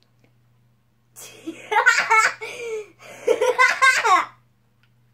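A young boy laughing loudly in two long bouts, starting about a second in and again about three seconds in.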